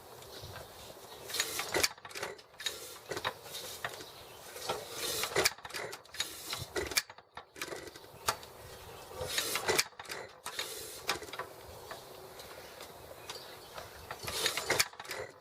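Irregular metallic clicking and clattering from hand work on an antique hit-and-miss farm engine, in scattered bursts rather than a steady firing rhythm: the engine is not running.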